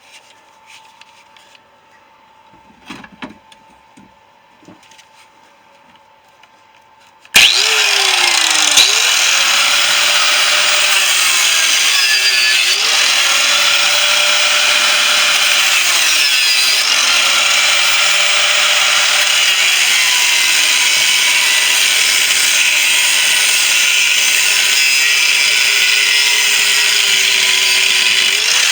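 Faint handling clicks, then an electric power tool starts abruptly about seven seconds in and runs loud and steady, cutting into a refrigerator compressor's steel shell. Its motor pitch dips and recovers several times as it bogs under the load of the cut.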